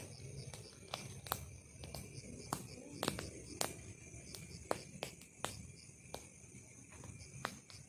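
Night insects, crickets among them, chirping steadily in a high pulsing chorus, with sharp irregular clicks and snaps about once or twice a second.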